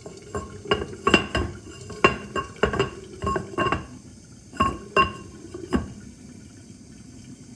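Unglazed terracotta lid of a Moroccan clay pot being set down and turned on the pot's clay rim: a string of hard ceramic clinks and knocks with a short ring, pausing briefly about four seconds in and stopping about six seconds in.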